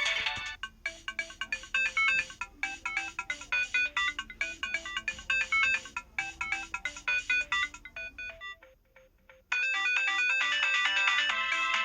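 Built-in ringtones of an MS700 mobile phone playing: a tune of short, quick synthesized notes that stops about eight and a half seconds in, then after about a second's pause a fuller, denser ringtone melody starts.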